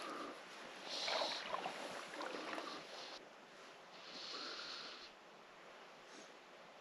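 Faint breathing close to the microphone, two breaths through the nose a few seconds apart, over quiet water movement.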